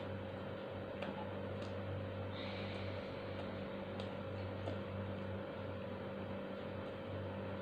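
A few faint, sharp clicks of chewing and fingers picking at fried chicken, over a steady low hum and hiss.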